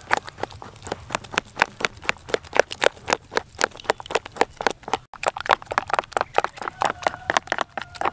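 Metal spoon beating a thick flour-and-egg batter in a plastic bowl, clacking against the bowl in a fast even rhythm of several strokes a second, with a brief break about five seconds in.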